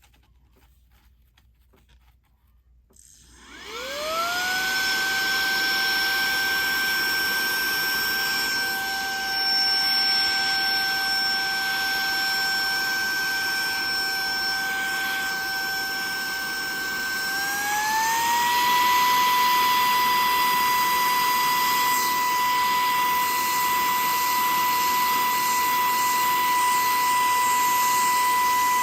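Saker mini handheld cordless vacuum cleaner with a brush nozzle switched on about three seconds in: its motor spins up in a rising whine to a steady high whine over rushing air. A little past halfway the whine steps up in pitch and holds there.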